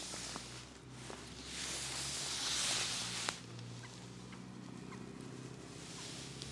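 Water splashing as a hooked mirror carp thrashes at the surface by the landing net, with one loud burst of splashing from about a second and a half in that stops sharply just past the three-second mark.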